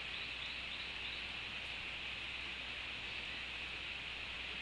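Steady ambience of a rainy tropical forest: an even hiss with a bright high band, and a few faint repeated chirps in the first second.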